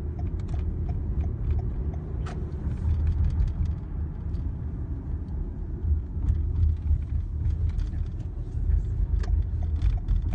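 Road noise heard inside a moving car's cabin: a steady low rumble of engine and tyres, with light scattered clicks over it.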